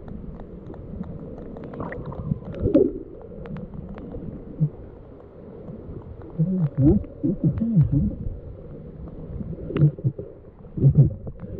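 Muffled underwater sound picked up by a submerged camera: a low rumble with scattered small clicks, and wavering muffled voice sounds through the water, including "eat it" near the end.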